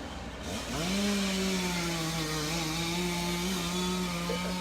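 Chainsaw revving up about half a second in, then running steadily at full throttle.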